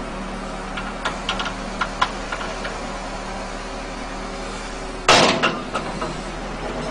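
Heavy diesel machinery running steadily, with a few light metallic clicks early on and one loud, sudden clank-like burst about five seconds in.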